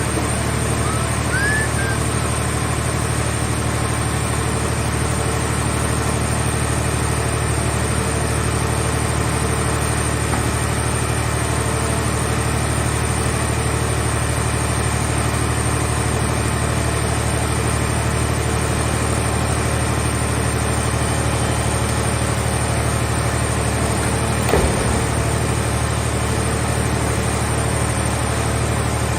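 Engine running steadily at an even speed, with a single short knock about three-quarters of the way through.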